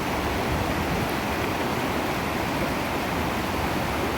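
Waterfall rushing steadily: water falling and tumbling over rock in a constant, even roar.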